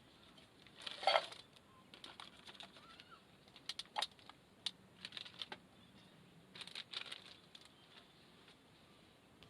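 Small objects being handled: scattered light clicks and clinks, with a brief louder clatter about a second in.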